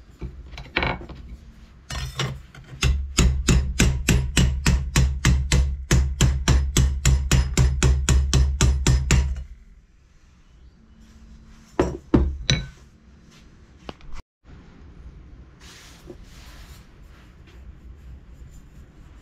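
A hammer striking a welded sheet-steel expansion-chamber cone over a steel bar clamped in a vise: a steady run of about three sharp metal blows a second for some seven seconds, then a couple of single blows a little later. The blows are hammering the weld area smooth.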